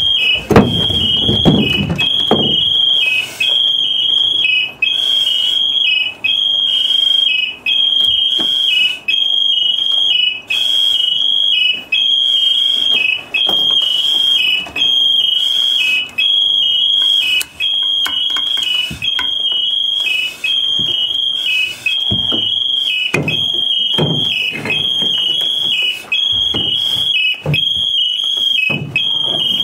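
Loud electronic alarm: a high, piercing tone that steps down briefly and cuts out about every second and a half, repeating steadily. A few low knocks and rumbles of gear handling lie under it near the start and end.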